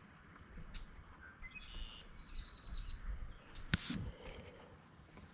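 Songbirds chirping with short high calls and a brief trill, over a faint low rumble; two sharp clicks come close together just under four seconds in.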